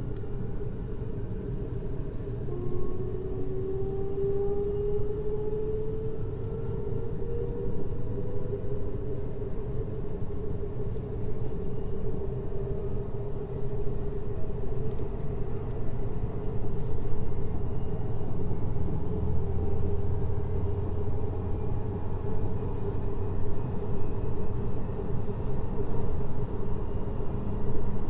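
JR Hokkaido 733 series electric train running, heard from inside the car: a steady rumble of wheels on rail, with the traction motors' whine rising in pitch for several seconds near the start as the train picks up speed, then steady running.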